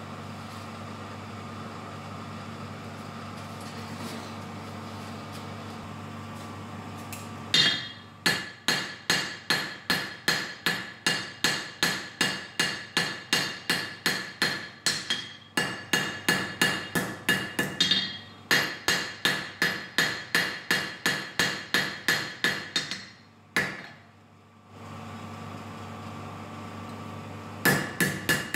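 A forging hammer striking hot steel on an anvil, a ringing blow about two to three times a second over a long run with two brief breaks. Before and after the run, while the blade reheats, a steady hum of the coal forge's air blower, with the hammering starting again near the end.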